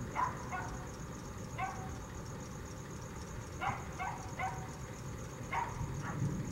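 A dog barking repeatedly, about eight barks in short groups of one to three.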